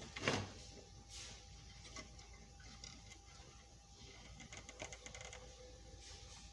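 Faint, irregular light clicking and tapping of small parts being handled on a workbench, with a quick run of rapid clicks about four and a half seconds in.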